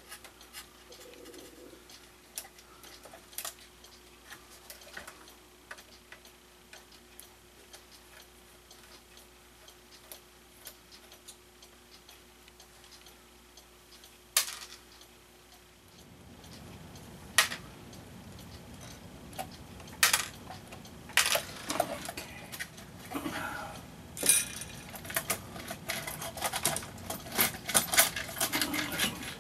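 Scattered small clicks and metallic clinks of an old Regula 24 cuckoo clock being taken apart by hand. Sparse and faint at first, with one sharp click about halfway, then from about halfway on a rustle with busier, louder clicking and clinking.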